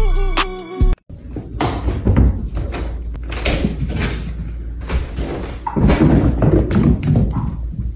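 A tune breaks off about a second in, followed by an irregular run of knocks and bumps, like a door or wooden hatch being pushed and knocking.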